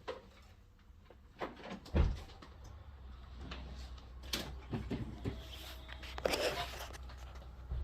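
Scattered knocks and clicks of parts and doors being handled, with a sharp thump about two seconds in and a low steady hum after it.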